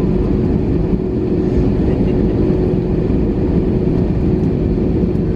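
Airbus A321 cabin noise from a seat toward the rear: a steady low rumble of the CFM56 engines at idle on the ground before takeoff, with a constant hum running through it.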